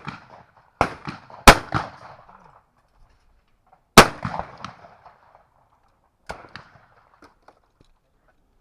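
Shotgun reports at clay targets: two loud shots about a second and a half and four seconds in, with fainter reports around them, each ringing out briefly.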